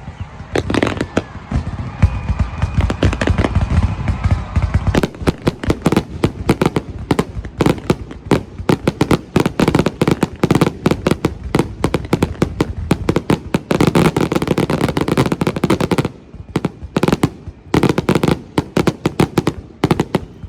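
Fireworks going off in a rapid, continuous barrage of bangs and crackles, with a heavy low rumble in the first few seconds.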